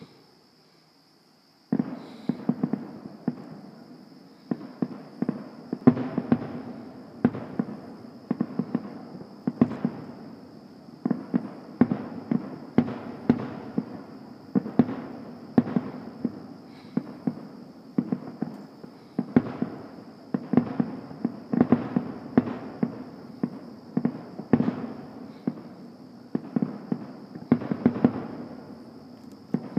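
Fireworks display: after a moment of quiet, a dense string of booms starts suddenly about two seconds in and keeps going, several bursts a second with a rumble between them.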